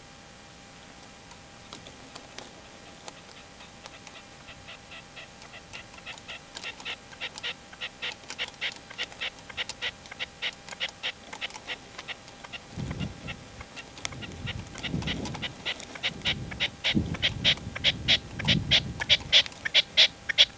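Red-legged partridge calling: a long series of sharp, rhythmic notes, about three or four a second, that starts softly and grows steadily louder. Low muffled rumbles join in during the second half.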